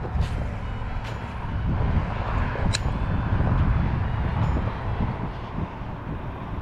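Low, gusting wind rumble on the microphone, rising and falling in level, with a few light clicks.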